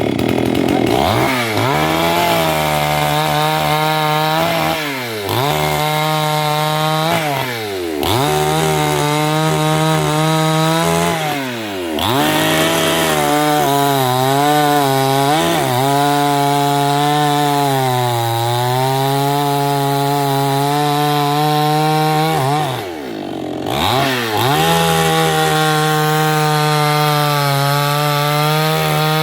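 Chainsaw cutting wood, the engine running at high speed with its pitch wavering under the load of the cut. Five times the pitch dips sharply and comes straight back up as the throttle eases and opens again.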